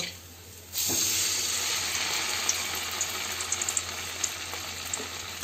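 Oil sizzling steadily in a wok around a cornflour-and-rice-flour-battered bread round that is shallow-frying in refined white oil. The sizzle starts abruptly about a second in and eases slightly towards the end.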